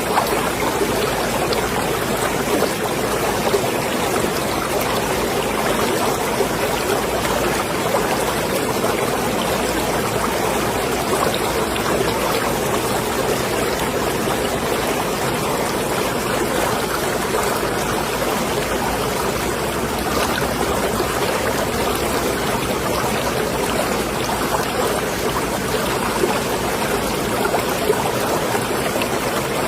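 Seawater lapping and sloshing in a marina: a steady rush of small splashes with no pauses.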